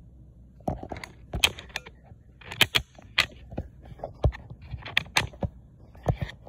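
Brayer rolling through sticky printmaking ink, giving an irregular crackle of small clicks and snaps. Such a crackle is the sign of a thin, even coat of ink; with too much ink the roller is silent.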